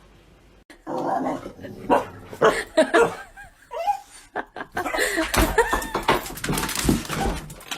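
A dog barking in short, irregular bursts, with a person laughing.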